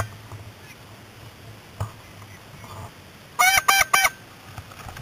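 Three quick, nasal goose honks about three and a half seconds in, after a sharp click at the very start.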